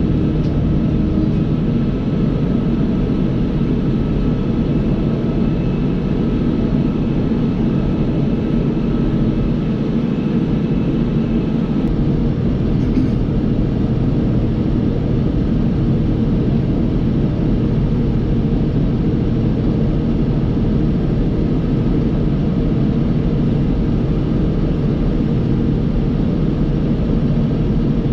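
John Deere 5075E tractor's diesel engine running steadily under load, pulling a Krone KR250B round baler while it picks up and rolls hay.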